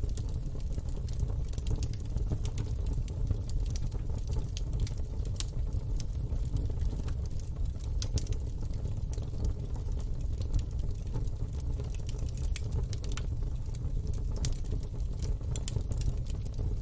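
Wood fire burning in a fire pit: a steady low rumble with many scattered sharp crackles and pops.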